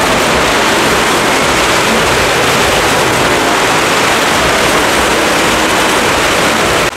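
Loud, steady din of several motorcycle and car engines running hard as they circle the vertical wooden wall of a Well of Death stunt drum. The noise drops briefly near the end.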